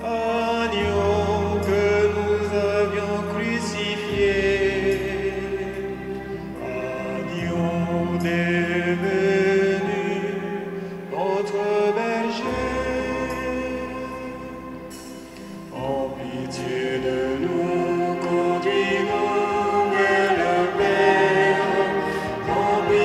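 Voices singing a slow liturgical hymn over sustained organ-like chords, the low notes changing every few seconds.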